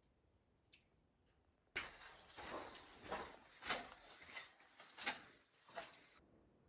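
A run of scrapes and knocks, about one every half second, starting suddenly a couple of seconds in and stopping sharply after about four seconds; the rest is near silence.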